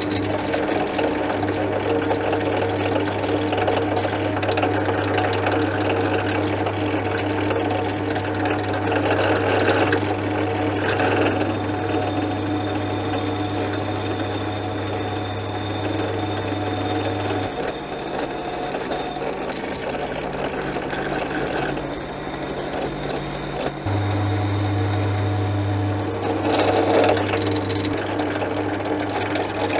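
Small benchtop drilling machine running steadily as a drill bit cuts into an aluminium bearing block, a constant motor hum with a whine. The low hum changes for several seconds in the middle, then returns.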